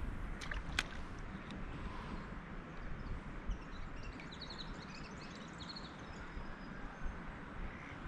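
Wind rumbling on the microphone out on open water, with two sharp clicks in the first second and faint bird chirps about three to five seconds in.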